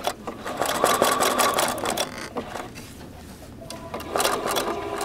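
Domestic sewing machine doing free-motion stitching, its needle running rapidly in two short runs with a pause between.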